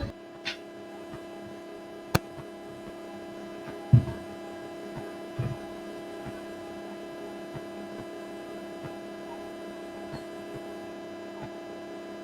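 Steady electrical mains hum with a few clicks and low thumps in the first half, the loudest thump about four seconds in.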